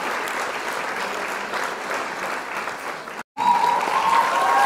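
Steady applause that cuts off abruptly about three seconds in. After a brief gap, an outro sting of clear, gliding tones begins.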